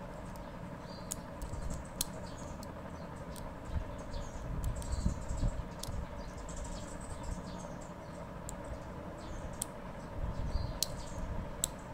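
Faint scattered clicks and handling noise from a back tension archery release being worked in the hands, rotated to check its firing point after the tension adjustment.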